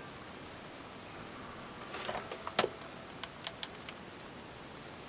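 Small clicks and rustling of paper craft pieces being handled on a tabletop: a burst of light knocks and rustle about two seconds in, ending in one sharper click, then a few faint taps.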